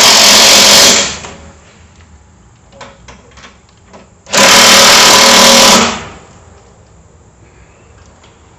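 Power driver running in two bursts of about two seconds each while tightening the snowblower's assembly bolts, with small handling clicks between.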